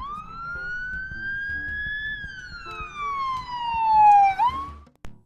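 Emergency siren wail: one long tone that rises in pitch for about two seconds, then falls slowly and grows loudest near its low point. It flicks sharply back up and cuts off near the end.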